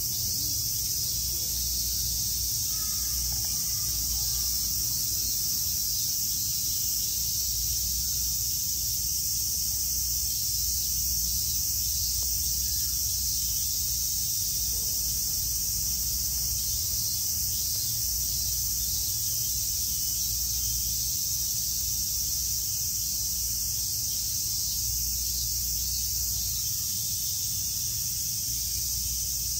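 A steady, high-pitched chorus of summer cicadas, with a low hum underneath.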